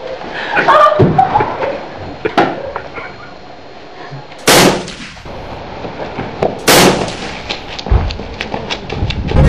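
Two pistol shots about two seconds apart, the first about halfway through, each a loud sharp crack with a short tail. Lighter knocks and clatter come before them.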